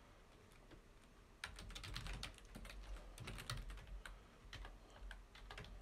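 Typing on a computer keyboard: a run of quick, irregular keystrokes that starts about a second and a half in.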